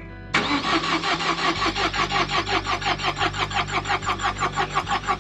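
Renault Duster's starter motor cranking the cold engine with a fast, even pulsing that begins about a third of a second in. The engine does not catch: a failed first crank after a night well below freezing.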